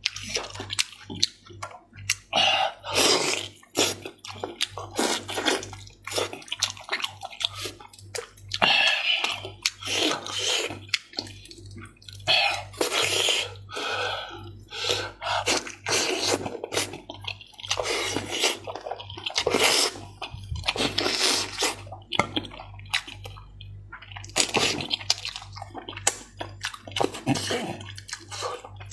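Close-miked wet chewing, sucking and lip-smacking of someone eating stir-fried chicken heads, in many short irregular bursts.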